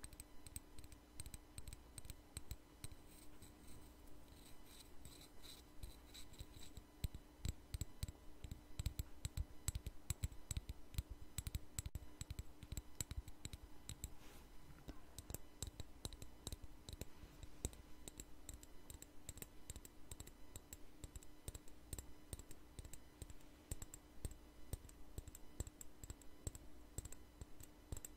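Fast fingernail tapping on a small hard black plastic object, a rapid run of sharp clicks that grows louder for a few seconds in the middle.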